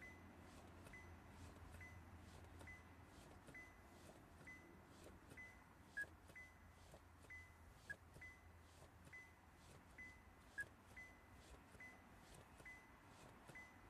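Near silence: a car's faint electronic warning chime beeps steadily about once a second over a low hum, with a few slightly louder chirps in the middle.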